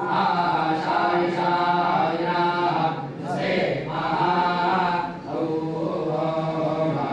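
A group of men chanting scripture in unison, a parayana recitation. The chant runs in steady, held phrases with brief breaks between them.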